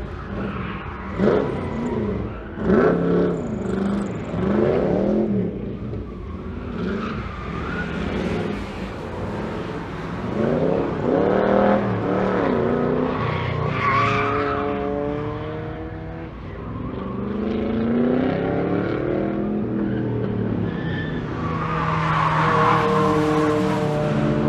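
Classic Chevrolet Corvette race car's engine accelerating hard and lifting off, its pitch climbing and dropping several times as it runs around the circuit.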